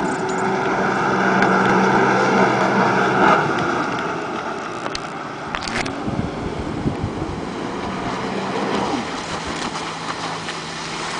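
Sea-Doo RXP-X 255 hp jet ski running at speed across the water, its engine note rising and falling as it passes and turns. Wind on the microphone and the rush of water come through with it.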